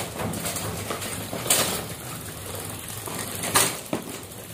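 Diesel engine running steadily at idle while it warms up, with two brief hissing bursts about a second and a half and three and a half seconds in.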